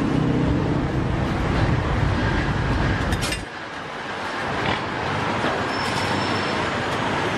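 Street traffic: a steady low rumble that drops away about three and a half seconds in. A single sharp metallic clink comes just before the drop.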